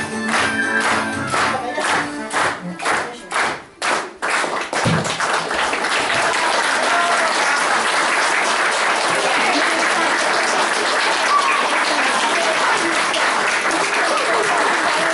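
A song with singing over a rhythmic beat ends about four seconds in, and the audience then applauds steadily.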